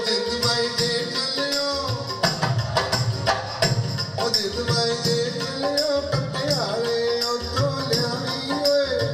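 Music with a regular drum beat and a melody that slides in pitch, played back over home hi-fi loudspeakers driven by a Luxman M-02 power amplifier and C-02 preamplifier.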